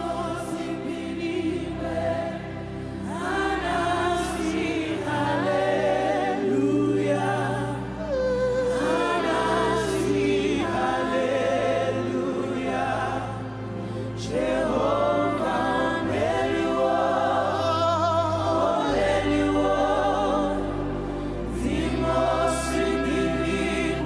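Live gospel worship music: voices sing a slow, flowing melody over sustained low accompaniment notes that shift every few seconds.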